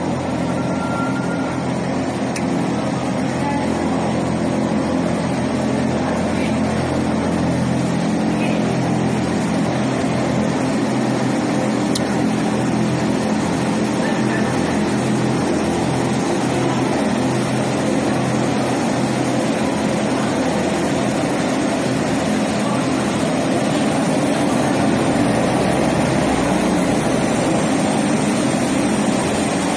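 Twin-turboprop airliner taxiing, its engines and propellers running steadily, getting a little louder near the end as it comes close and turns, with a faint high whine shifting in pitch.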